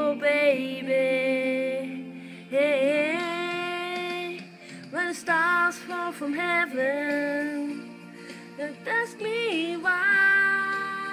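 Singing voice carrying a slow melody in separate phrases with wavering, vibrato-laden notes, over a steady instrumental backing.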